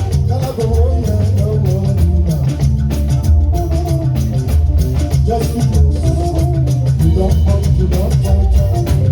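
Live band playing upbeat dance music, with drums and percussion keeping a steady beat over a heavy bass line and melodic instrument lines.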